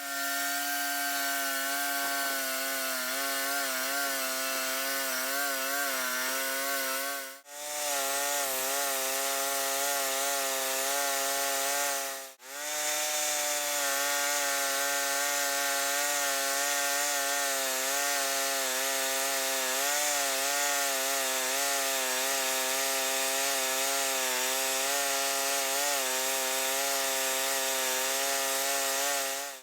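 Sawmill running and cutting through a black walnut log: a steady machine drone with a pitch that wavers slightly. It breaks off sharply twice, about seven and twelve seconds in.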